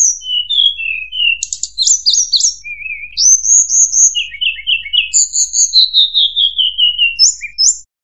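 Mangrove blue flycatcher song played as a lure call: a varied run of clear whistled phrases and quick trills, with a falling series of short notes about five seconds in.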